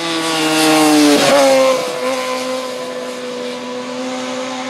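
Suzuki GSX-R 750 K8 sport bike's inline-four engine at high revs as it races past close by. Its pitch slides down, drops sharply at the loudest point about a second in as the bike goes past, then holds steady as it pulls away.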